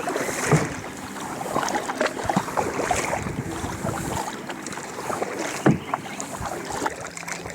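Kayak paddle strokes dipping and splashing in the water, with a couple of sharper knocks about half a second in and near six seconds in.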